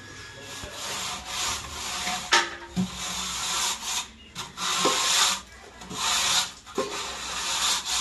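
Tools scraping across a loose sand-cement mortar bed as a tiler spreads and levels it for floor tiles: rough scraping in repeated strokes, each about a second long, with a few sharp knocks between them.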